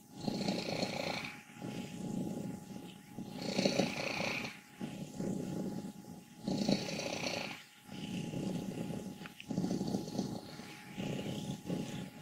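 An old domestic cat's loud, rattling purr, pulsing with each breath about every one and a half seconds. Roughly every other stroke carries a higher, squeaky note. A vet has found the 14-year-old cat healthy, so the rattle is not a sign of illness.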